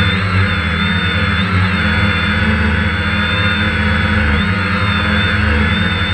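DJI Phantom quadcopter's motors and propellers running steadily as it hovers, heard through the GoPro mounted on the drone itself: a constant buzzing hum under a thin high whine that wavers slightly in pitch as the motors adjust.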